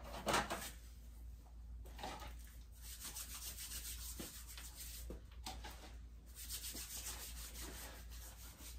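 Soft rubbing in several long wiping strokes: an oiled rag worked along the outside of a muzzleloader's blued steel barrel.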